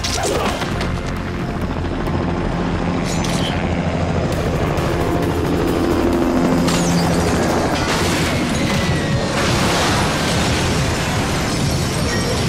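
Action-scene soundtrack: a dramatic music score mixed with fight sound effects, including booms and a steady low rumble.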